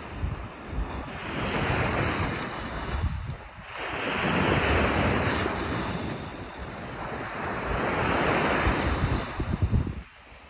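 Small waves breaking on a sandy shore, the wash swelling and easing in several long surges, with wind buffeting the microphone. The sound drops away sharply just before the end.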